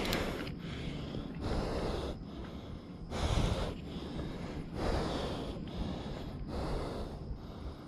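A climber's heavy breathing, a quick, even run of breaths about one a second, out of breath from climbing the radio tower.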